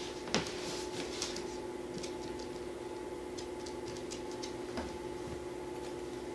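Small dog's nails clicking and tapping on a wooden floor as it shifts about: scattered light ticks, the sharpest about half a second in and a quick run of small ticks about three and a half seconds in, over a steady low hum in the room.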